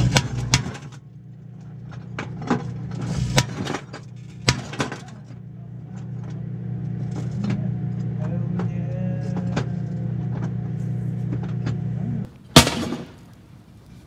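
Danby Designer microwave oven running with a steady low hum while live .22 LR cartridges cook off inside it, popping sharply like little firecrackers: a few loud pops in the first five seconds among fainter cracks. The hum cuts off near the end, followed by one loud thump.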